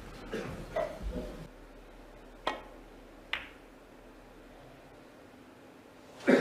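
Snooker balls struck on the table: two sharp clicks, the first about two and a half seconds in and the second under a second later, each with a short ring.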